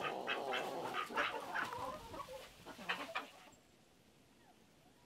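Chickens clucking in a quick run of short calls, which stops about three and a half seconds in. After that there are only a few faint, brief calls over a quiet background.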